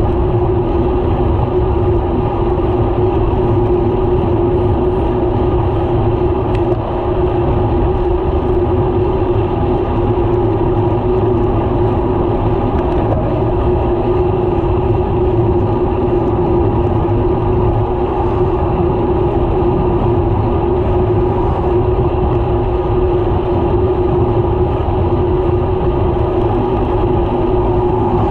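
Steady wind rush on a bicycle-mounted camera's microphone while riding a road bike at speed, with a low steady hum underneath.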